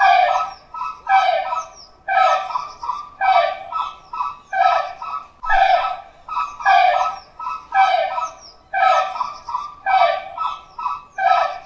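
A flock of Chilean flamingos calling: a steady run of short, goose-like honks, about two a second.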